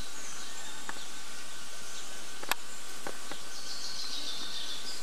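Outdoor ambience: a steady hiss with faint high bird twittering, thicker near the end, and a few sharp clicks, the loudest about two and a half seconds in.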